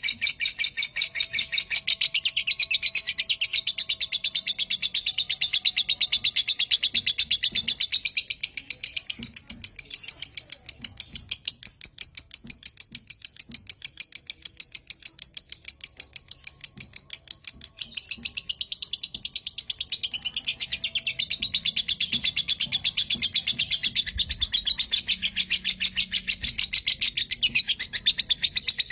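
Lovebird giving its 'kekek' call: a long, unbroken run of short, sharp, high chattering notes repeated rapidly and evenly.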